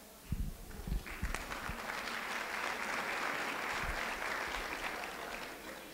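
A few soft low thumps, then audience applause starts about a second in, swells and tapers off near the end.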